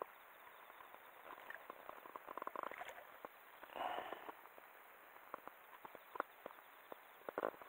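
Faint, scattered small clicks and taps, with a brief rustling rush about four seconds in.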